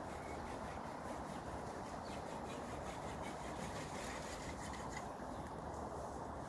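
Steady background noise: an even hiss with no distinct events.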